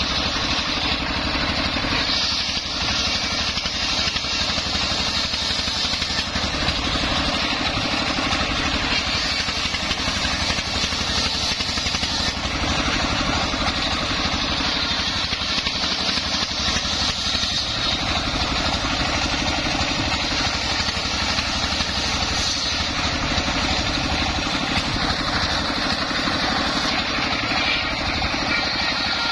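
Single-cylinder stationary diesel engine running steadily, belt-driving a homemade circular sawbench with its blade spinning.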